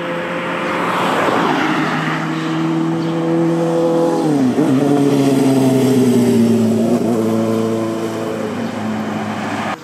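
Honda CB400Four inline-four motorcycle with an aftermarket short-pipe exhaust, running on the road. The exhaust note holds steady, falls sharply in pitch about four seconds in, then holds steady at the lower pitch.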